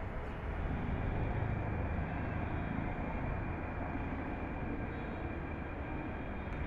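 Steady rumble of road traffic, an even wash of noise with no single vehicle standing out.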